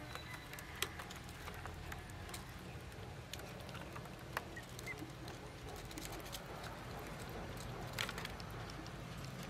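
Ducklings pecking at grain feed in a plastic bowl: scattered small clicks and taps of their bills, with a couple of short faint peeps about halfway through.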